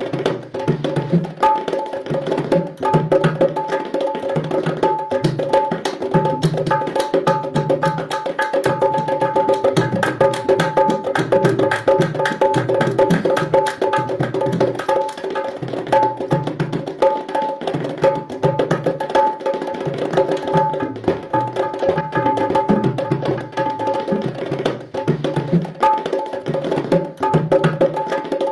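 Punjabi dhol music: a fast, driving dhol beat with deep bass strokes and quick high strokes, and a short melodic phrase repeating over it.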